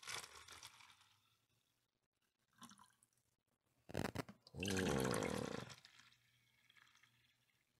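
Liquid poured from a plastic cup through a plastic funnel into a plastic water bottle. There are a few sharp plastic clicks about four seconds in, then the loudest stretch is a gurgling pour of about a second as the bottle fills.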